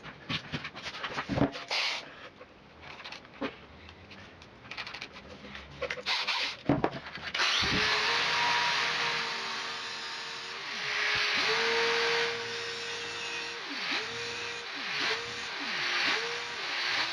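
Clicks and knocks of tools being handled, then an angle grinder and a cordless drill running together with the hiss of the grinding disc cutting a thermostat's metal stem. The motor whine climbs as it starts, and from about eleven seconds in it drops and picks up again several times as the tools are eased off and back on.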